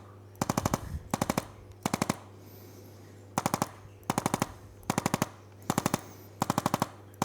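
Handheld percussive adjusting instrument firing short bursts of rapid clicking thrusts, about half a dozen clicks per burst, about eight bursts with brief pauses between.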